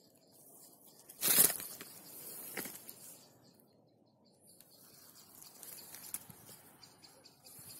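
Rustling in leaf litter and undergrowth: one sudden loud rustle about a second in, a smaller one after it, and softer rustling in the second half.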